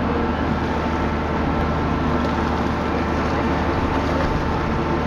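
Steady hum of the dive boat's machinery, with water churning and splashing at the stern where fish are feeding at the surface.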